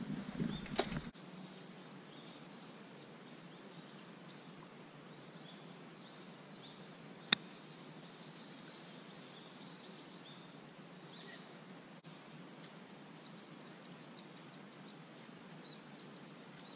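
A golf club strikes a ball once with a single sharp crack about seven seconds in. Behind it is faint outdoor ambience with small birds chirping.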